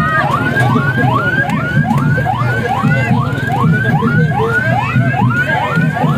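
Electronic siren sounding a fast, repeating rising whoop, about two and a half times a second, over a low pulsing rumble.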